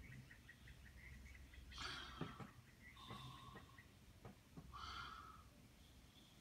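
Near silence: faint room tone with a quick run of soft chirps that fades out in the first second, then a few short faint sounds and soft ticks.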